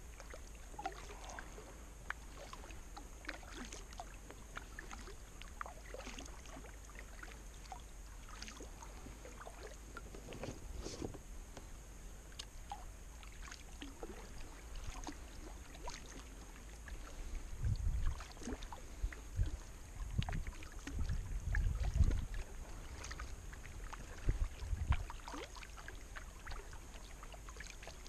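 Kayak being paddled: drips and small splashes of water from the paddle blades, with a few louder low thumps in the latter part.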